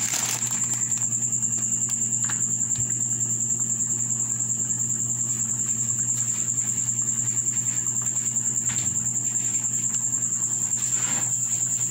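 A steady high-pitched chirping trill that pulses quickly and evenly, typical of a cricket, over a low steady electrical hum.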